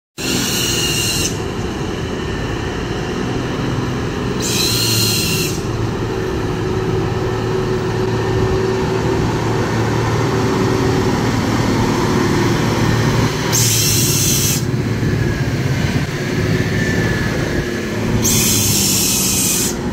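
Hino heavy truck's diesel engine running in a steady drone as it pulls a loaded container slowly past at close range, with four short bursts of hissing air, about a second each, of the kind its air brakes give.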